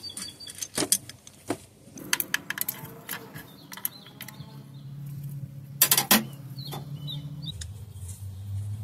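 Hand tools and loose bolts clicking and clinking against metal while fuel-rail fasteners are taken off, with a couple of sharper clicks a little past the middle. A low steady hum joins about halfway through.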